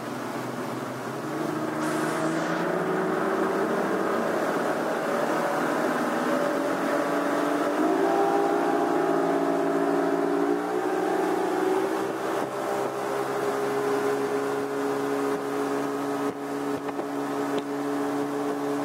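Twin Yamaha outboard motors on a speedboat accelerating, their pitch rising over the first ten seconds or so, then running steadily at speed.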